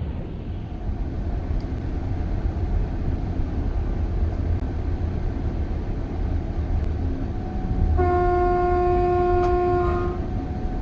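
Train rumbling steadily, then a loud horn blast of several held tones together, about two seconds long, near the end.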